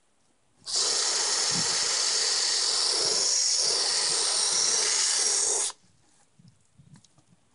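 Water spraying onto a plastic welding helmet: a steady hiss of spray for about five seconds that starts and stops abruptly.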